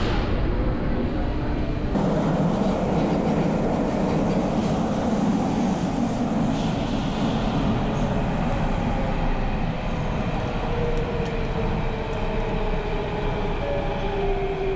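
Inside an Athens metro carriage: the train's running noise, a steady rumble that grows sharply about two seconds in as the train gets under way from the station, with a faint tone drifting slowly lower near the end.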